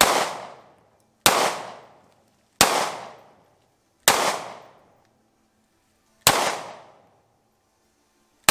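Six 9mm pistol shots fired one at a time, roughly one every one and a half to two seconds, the last right at the end; each crack has a short echo dying away behind it.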